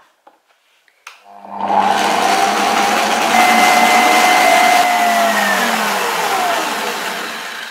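An electric stand mixer starts with a click about a second in, and its motor whirs steadily as the wire whisk beats eggs and powdered sugar. Near the end the motor's whine drops slightly in pitch and the sound fades.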